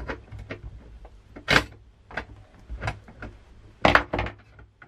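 Metal clinks and knocks of the thin steel lever bars of a bathroom scale being shifted on its steel base plate, a string of sharp clicks with two louder knocks about a second and a half in and near four seconds in.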